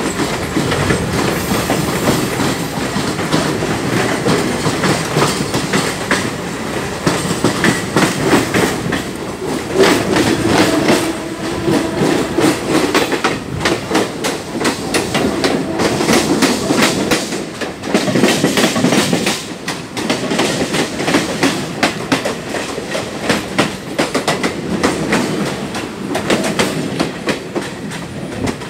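Steel train wheels clattering over rail joints and points, with many sharp clicks over a continuous running rumble as the train rolls through a yard. An electric multiple-unit train runs close alongside on the next track, adding its own wheel and running noise around the middle.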